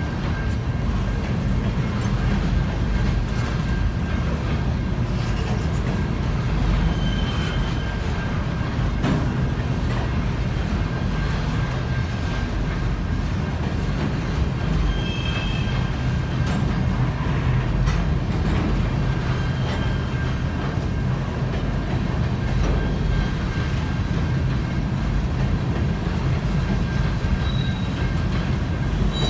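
Empty centerbeam flatcars of a CN freight train rolling past at a level crossing, a steady rumble of wheels on the rails. A few brief high-pitched wheel squeals come through it.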